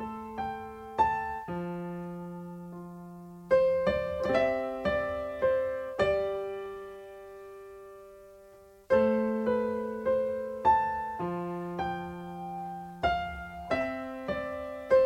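Electronic keyboard in a piano voice playing a slow introduction: left-hand chords moving through A minor, F major, C major and G major under a right-hand melody phrase. Notes are struck and left to ring, with one chord held and fading for a few seconds in the middle before the phrase starts again.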